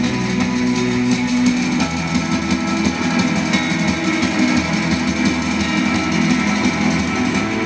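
Live instrumental post-rock band playing: layered, sustained electric guitars, with light drums.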